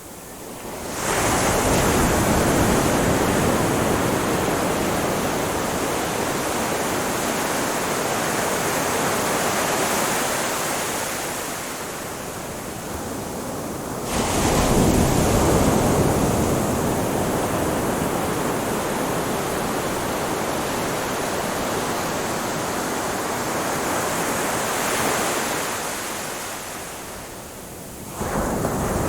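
Ocean waves washing onto a beach: a continuous rush of surf that swells as waves break about a second in and again about fourteen seconds in, easing off between, and rises abruptly again near the end.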